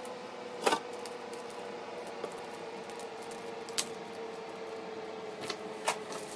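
Cellophane-wrapped chocolates being set by gloved hands onto a tray, giving a few short sharp crinkles and clicks, the loudest about a second in. A faint steady hum runs underneath.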